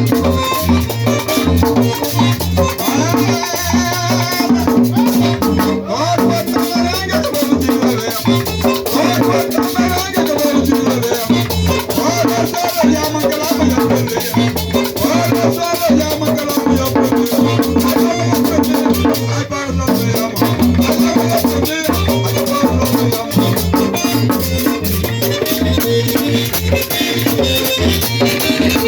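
Live merengue típico band playing at a fast, driving beat: quick accordion runs over the steady scrape of a güira and the tambora drum.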